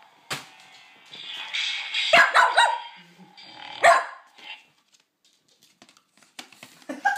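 Dog barking: a quick run of short barks about two seconds in and one more sharp bark just before four seconds.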